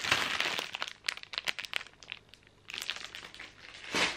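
Plastic snack packaging crinkling and crackling as it is handled, in irregular spells, loudest in the first second.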